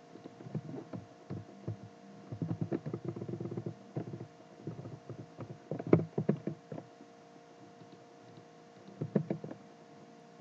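Computer keyboard typing: clusters of keystrokes, a longer run in the first few seconds, then short bursts about six and nine seconds in, over a faint steady hum.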